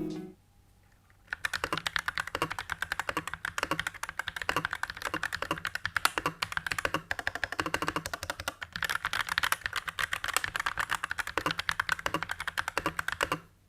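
Typing sound test on a mechanical keyboard fitted with PBT doubleshot keycaps in Cherry profile. A fast, continuous run of key clicks starts about a second in and stops shortly before the end.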